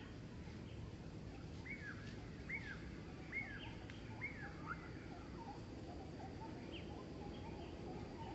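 A run of about five short, high animal calls, each dropping sharply in pitch, then fainter, lower chirps, over a steady outdoor background rumble.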